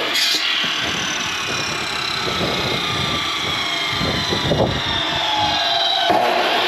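Wood-Mizer band sawmill running between cuts, its engine going steadily, with the blade cutting into the log again near the end. Gusty wind rumbles on the microphone.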